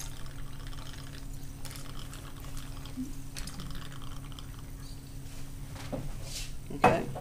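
Cognac pouring from an upturned bottle into small tasting glasses, a faint trickle of liquid. Near the end there is one sharp knock, the loudest sound.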